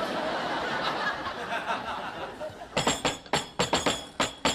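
Sitcom studio audience laughing, then, about three seconds in, a short scene-change music cue starts with sharp, regular percussive beats.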